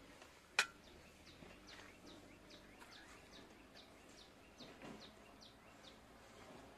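Faint bird calls: a rapid, even series of short, high, falling chirps, two to three a second. About half a second in there is a single sharp click.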